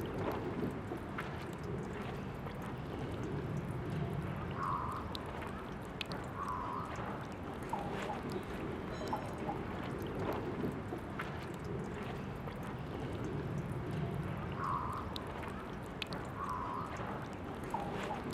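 Water running from the tap of a park drinking fountain: a steady trickle and splash with small drips.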